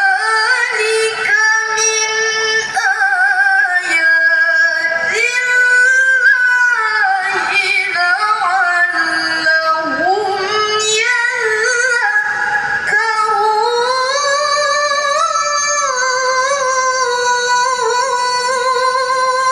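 Woman's melodic Qur'an recitation (tilawah): one long, ornamented phrase in which the voice glides up and down and holds high notes, broken by a few short pauses.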